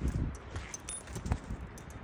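Keys jingling lightly in a hand: a few small metallic clicks and tinkles over a low rumble.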